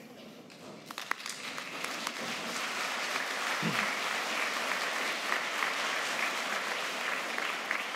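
Large crowd applauding. The clapping starts about a second in, swells, then holds steady.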